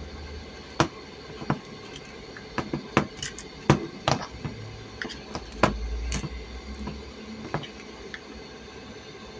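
Irregular sharp clicks and knocks, about a dozen over several seconds, with a short low hum partway through.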